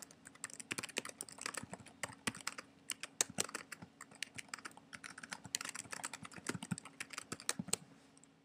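Typing on a computer keyboard: quick runs of key clicks in uneven bursts with short pauses, stopping shortly before the end.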